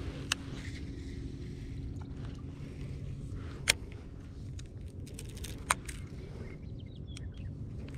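A steady low hum with a few sharp, brief clicks or knocks over it: one just after the start, a louder one in the middle and another two seconds later.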